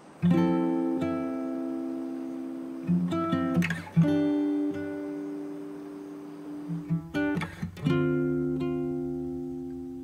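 Background music on acoustic guitar: slow strummed chords, each left to ring and fade, a new one about every four seconds, with short picked runs between them.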